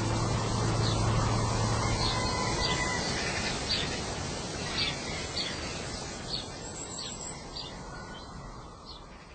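Birds chirping in scattered short calls over a steady rushing hiss, the whole fading out gradually. A low held note from the background music dies away in the first few seconds.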